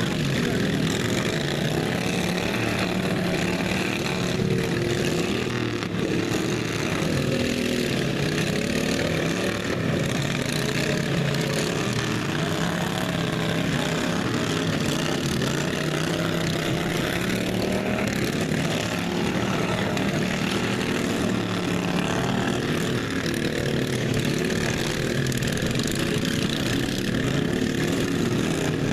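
Racing lawn mower engines running together, their pitch rising and falling as they rev.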